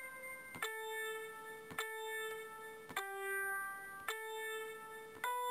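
Background music: a slow keyboard melody, single piano-like notes struck about once a second, each fading before the next.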